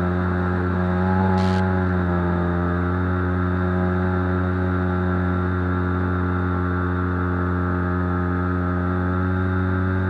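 Skywalker X8 flying wing's pusher motor and propeller droning at a steady pitch in flight, heard through a camera on the aircraft's nose. The pitch lifts slightly about a second in, and there is a brief hiss about a second and a half in.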